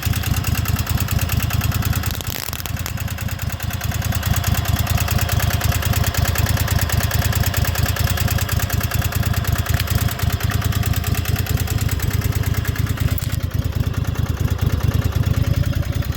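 Riding lawnmower's engine running steadily at idle, meant to be recharging its low battery. There is a brief dip about two seconds in.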